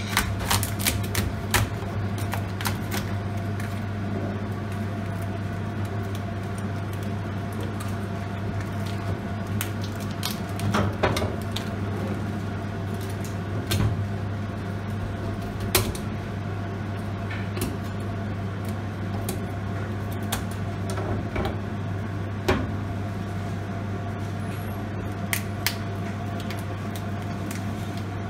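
A chef's knife and lobster shell on a plastic cutting board make sharp clicks and knocks as the lobster is split and handled. They come in a quick cluster over the first few seconds, then singly every second or few. A steady low machine hum runs underneath.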